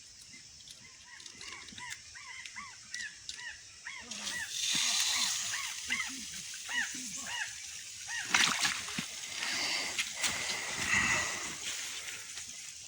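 Birds chattering in a rapid run of short chirps. About four seconds in, a hiss of running or spraying water joins them, and a couple of sharp knocks follow later.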